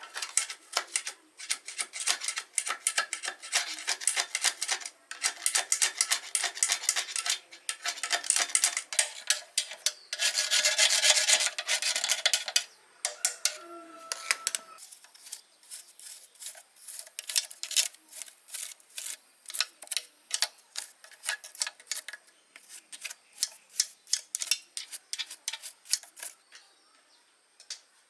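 Repeated hand-worked rubbing strokes on a workpiece, as in filing or sanding a part clean. They come in quick runs, with an unbroken stretch about ten seconds in, then slower, evenly spaced strokes through the second half.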